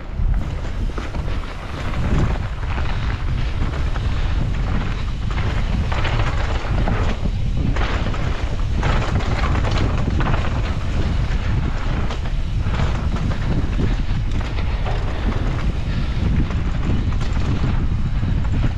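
Mountain bike ridden fast down a dirt trail: wind on the microphone and tyre noise run steadily, broken every second or two by knocks and rattles as the bike hits bumps.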